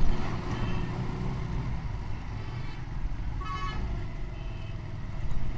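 Busy street traffic of motorcycles and motor rickshaws with a steady low engine rumble, and several short horn toots, the loudest about three and a half seconds in.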